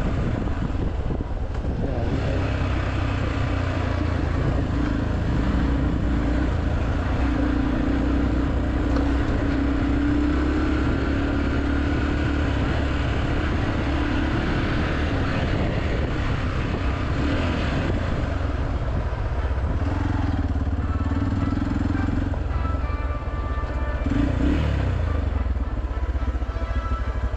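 Xpulse motorcycle with a modified exhaust running steadily under way, with a brief dip and rise in engine pitch near the end.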